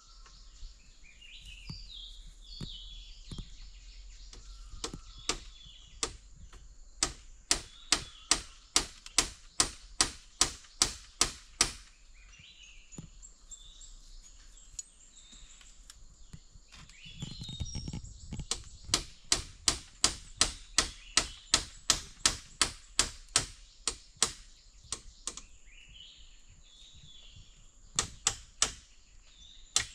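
Hand-tool chopping strikes, about two a second, in two long runs with a pause between them and two more strikes near the end. Birds chirp and a steady high insect drone runs underneath.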